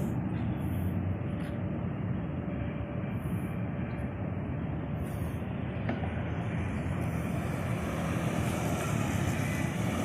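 Steady outdoor background rumble with no clear single event, heaviest in the low range.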